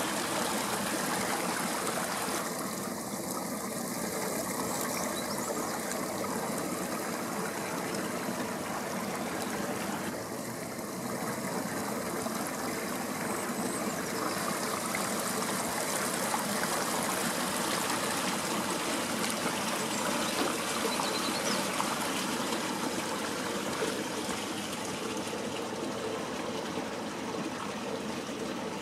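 Thermal spring water running steadily through a narrow channel cut in the travertine.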